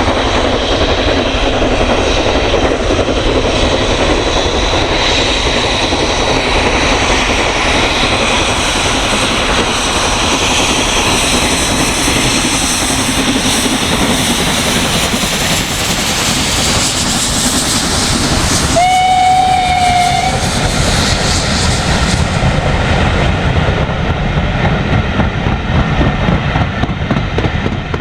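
Steam-hauled train passing with a steady rush of exhaust and wheel noise. About two-thirds of the way through, the locomotive sounds its whistle once, a short steady note of about a second and a half.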